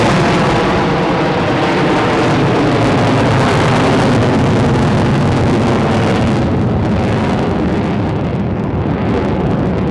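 Loud roar of the F-35A Lightning II's single F135 turbofan after the tactical pitch. The high hiss fades over several seconds as the jet draws away, leaving a lingering low rumble.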